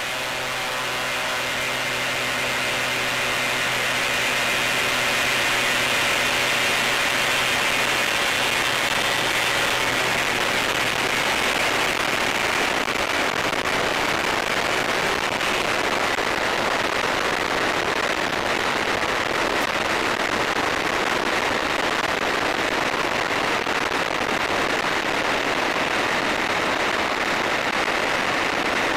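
Hanuman ultralight aeroplane's engine and propeller at take-off power, building in loudness over the first few seconds of the take-off run. As the aircraft lifts off and climbs, a steady rush of wind noise takes over and largely covers the engine note.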